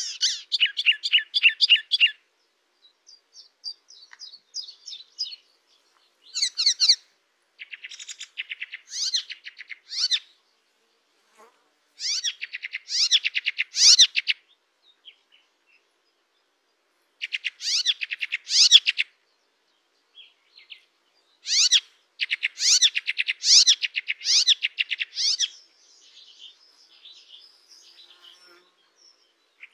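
A small songbird singing in separate phrases of rapid, rattling strings of high repeated notes, each phrase one to four seconds long with short pauses between. This is the fast 'nembak' (shooting) song style valued by bird keepers. Some phrases are quieter and thinner.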